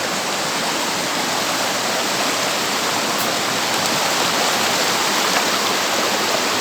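Steady rush of a river's water running over rocks, growing a little louder toward the end.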